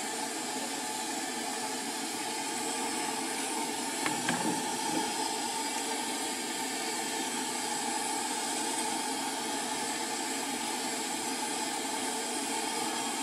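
Steady hiss from the noodle cart's cooking burner and pot, with a few light clinks about four seconds in.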